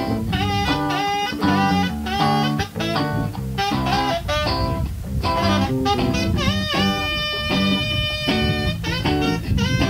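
A live band playing: electric guitar, saxophone and drums. About six and a half seconds in comes a long held note that dips at its start.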